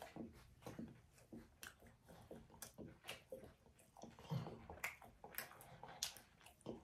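Faint chewing of a piece of seeded brown bread spread with olive paste, with small crunching clicks scattered irregularly throughout.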